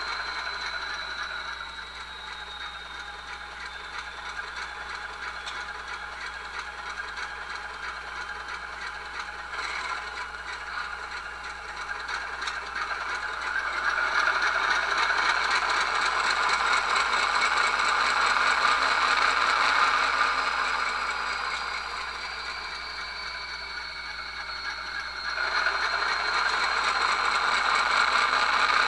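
Diesel engine sound of an ALCO 244 prime mover, with a high turbocharger-like whine, played by a QSI sound decoder through the small speaker of an HO-scale locomotive that is standing still. The running sound gets louder about halfway through, eases off, then gets louder again near the end.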